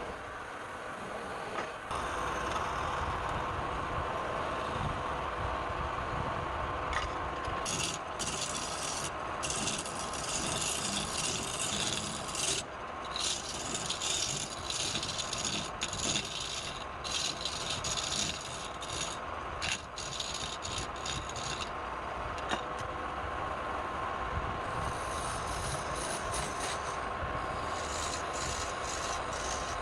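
Wood lathe running with a steady hum, a tool scraping and rubbing against the spinning wood in long stretches partway through and again near the end.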